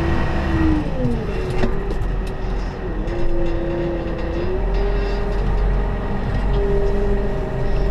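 New Holland TM165 tractor's diesel engine running under load while ploughing snow; its note drops about a second in, then holds steady with small shifts in pitch. A couple of brief knocks sound early on from the plough rig.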